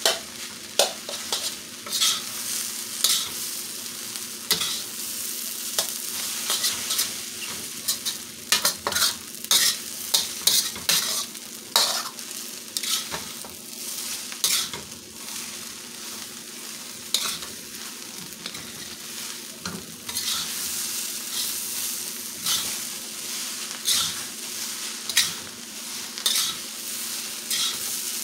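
Rice and vegetables being stir-fried in a steel wok: a steady sizzle, broken by frequent irregular scrapes and clacks of a metal spatula against the wok.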